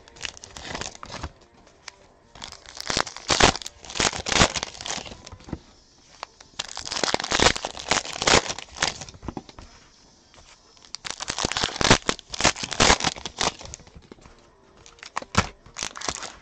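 Foil wrappers of basketball card packs crinkling as packs are torn open and handled. The crinkling comes in several bursts a second or few long, with short quieter gaps between them.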